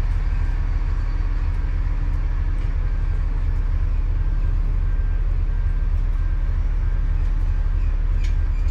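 Bus engine running steadily, a heavy low rumble heard from inside the moving bus, with a faint short beep repeating about once a second.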